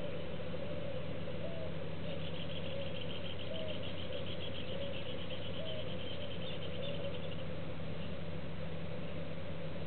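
Outdoor ambience: a steady low hum, faint short calls about once a second, and a rapid high-pitched trill from about two seconds in until past the middle.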